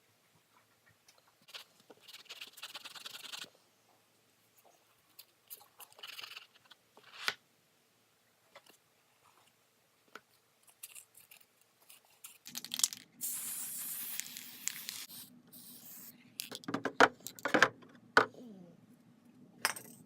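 Sandpaper rubbed by hand over a small pine workpiece, in short scraping passages. In the second half a steady low hum comes in, with a longer hissing stretch and then several sharp knocks near the end.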